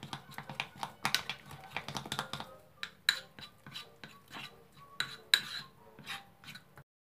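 A spoon clicking and scraping against a ceramic bowl while stirring melted white chocolate and milk into a smooth cream, with quick irregular taps, some of them ringing briefly. The sound cuts off abruptly near the end.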